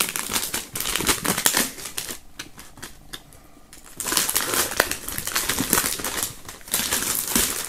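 Clear plastic shrink-wrap film crinkling and crackling as hands peel it off a cardboard box. It goes quieter about two seconds in, then is loud again about four seconds in.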